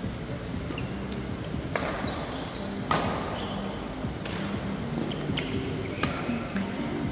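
Badminton rally: rackets striking a shuttlecock in a reverberant hall, about six sharp hits roughly a second apart, with short squeaks of shoes on the court mat between them.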